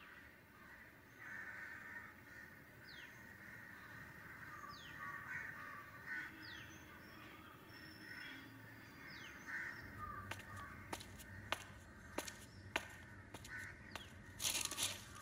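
Faint outdoor ambience of birds calling, with short falling chirps every second or two. From about two-thirds of the way in, a low hum comes in and a series of sharp clicks or knocks sounds, loudest near the end.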